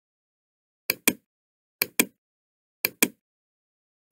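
Computer mouse button clicked over and over, each click a close pair of sharp clicks (press and release), about one pair a second, with dead silence between.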